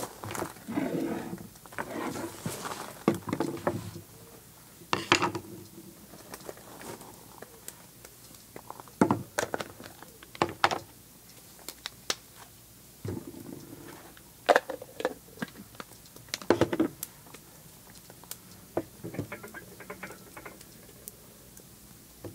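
Hands working tortilla dough on a floured wooden table: rustling handling noise as flour is scattered and a plastic bowl and lid are moved, several sharp knocks of things set down on the wood, and softer rustling as the dough is kneaded near the end.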